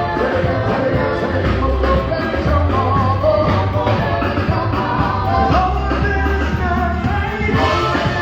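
Live band music with a singer: a bass holding long low notes, drums keeping a steady beat and a sung melody on top.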